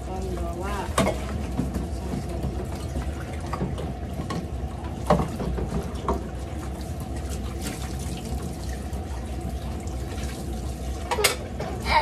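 Tap water running steadily into a plastic basin in a kitchen sink while dishes are washed, with a few clinks of dishes and a stainless steel tumbler.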